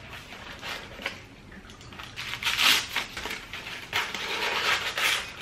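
Aluminium foil crinkling and crackling as a foil-wrapped pizza slice is handled and pushed into a toaster slot, in a run of rough bursts that starts about two seconds in and stops just before the end.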